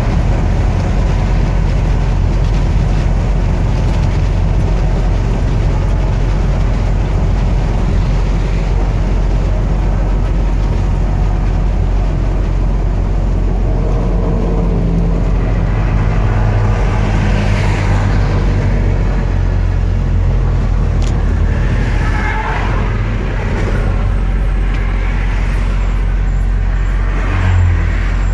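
Steady engine drone and road noise inside a truck's cab at highway speed, with the engine note shifting pitch several times in the second half and a brief louder rumble near the end.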